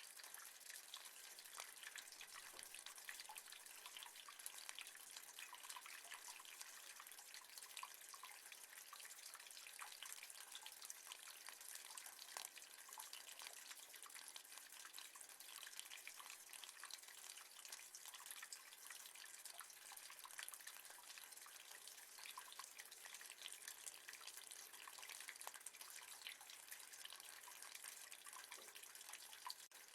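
Rain falling on metal: a faint, steady, dense patter of individual drops.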